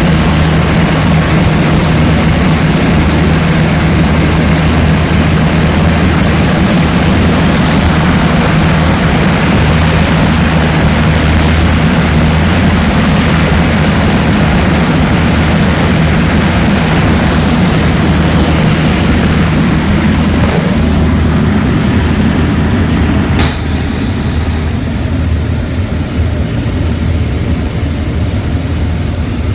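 Propeller aircraft's piston engine running steadily at high power, with a rush of air noise. About two-thirds of the way through, a click is heard and the sound drops slightly.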